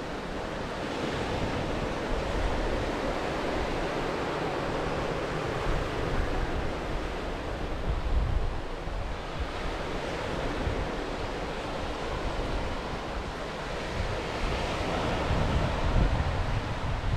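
Ocean surf washing onto a sandy beach, swelling and fading every several seconds, with wind buffeting the microphone.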